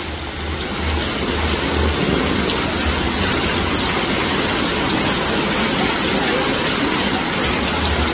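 Heavy rain pouring steadily onto a flooded street, a dense even hiss, with a low pulsing bass underneath.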